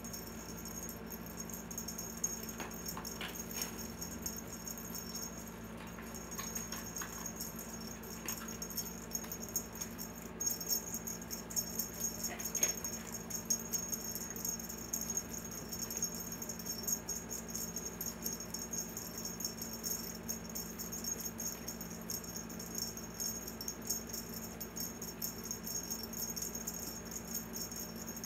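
Cat wand toy rattling and jingling continuously as it is waved, a steady, fast, high-pitched rattle, with a low steady hum underneath.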